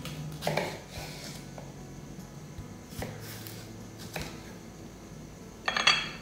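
A kitchen knife slicing a cucumber into strips on a wooden chopping board, with a few separate knocks of the blade on the board a second or more apart. The loudest sound, a clatter near the end, comes as the cucumber pieces are set down on a ceramic plate.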